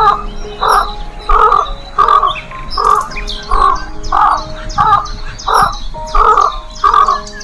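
A bird giving a long series of harsh, crow-like caws, about a dozen evenly spaced calls at a little under two per second, over quiet background music.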